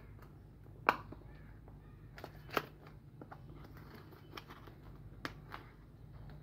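Cardboard charger box and its paper insert being handled and opened: a few sharp clicks and scrapes of card, the loudest about a second in, over a low steady hum.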